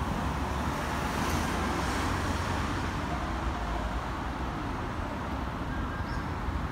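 Steady road traffic noise from passing cars, swelling slightly a second or two in.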